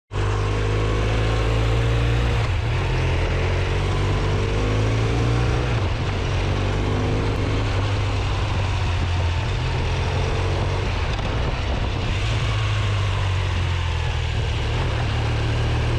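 Motorcycle engine running under way, with a heavy low rumble and wind and road rush from an onboard microphone. The engine note climbs several times in the first half.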